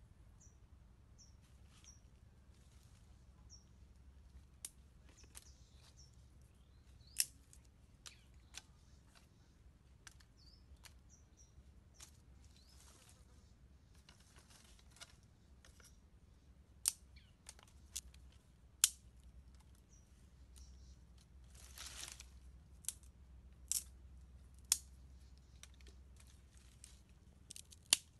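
Scattered sharp snaps and cracks of dry sticks and twigs being handled, with a short rustle of dry leaves about two-thirds of the way through. A few faint high bird chirps in the first few seconds.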